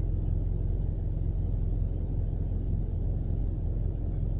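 A steady low rumble with a constant deep hum beneath it and no distinct events.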